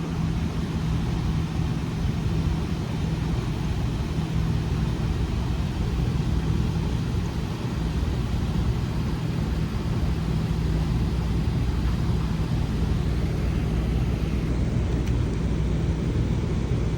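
Gas furnace running: a steady mechanical drone with a low hum that does not change.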